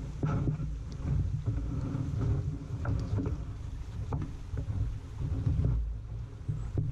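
Knocks and thumps on an orange plastic kayak's hull over a constant low rumble, as the paddler climbs out onto a muddy bank and steadies the rocking boat.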